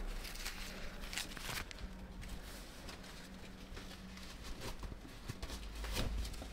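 Faint, irregular clicks and scrapes of hands working a strap wrapped round a motorcycle's oil filter to unscrew it, over a faint steady low hum.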